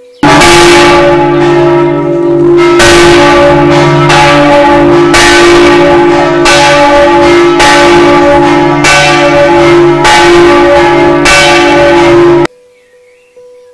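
A large swinging church bell pealing, its clapper striking about once every second and a quarter, each stroke ringing on into the next. The ringing cuts off suddenly near the end.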